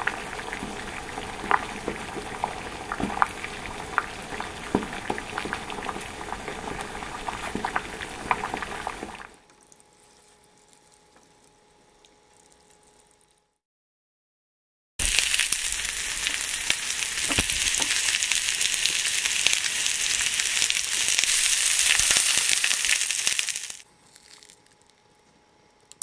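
Sound effect of water boiling, a dense bubbling with frequent pops, for the first nine seconds or so. After a few seconds of near silence, a loud sizzling frying sound effect runs for about nine seconds and then cuts off.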